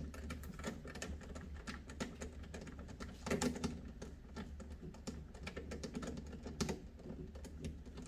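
Irregular light clicks and taps of screws being undone and handled during an ice maker teardown, over a low steady hum.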